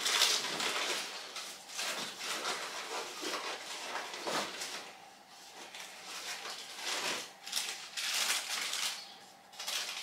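Plastic shopping bags rustling and crinkling in irregular bursts as someone rummages through them by hand.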